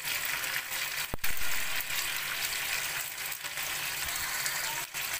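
Capsicum, onion, tomato and peas sizzling in oil in a kadhai as they are stirred, with one sharp knock about a second in.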